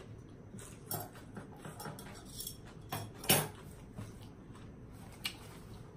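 Eating sounds: scattered light clicks and taps of utensils and food against dishes, with one louder knock about three seconds in.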